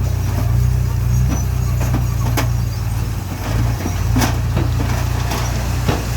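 Heavy machinery engine running steadily at a low pitch, with several sharp clanks or knocks over it.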